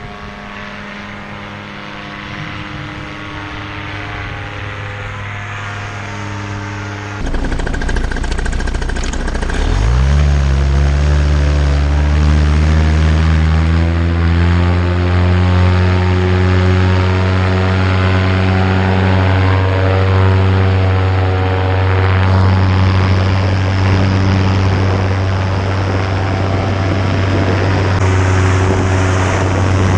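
Vittorazi Moster 185 two-stroke paramotor engine and propeller running at part throttle, then, after a sudden jump in loudness about seven seconds in, rising in pitch as it is throttled up to full power for takeoff. It then holds steady and loud at full power through the climb.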